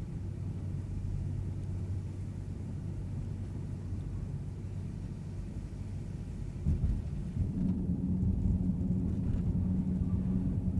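Pickup truck driving, heard from inside the cab: a steady low engine hum and road rumble from a true dual exhaust with a hole in one muffler. About two-thirds of the way through there is a short knock, and then the engine hum steps up to a higher, louder tone.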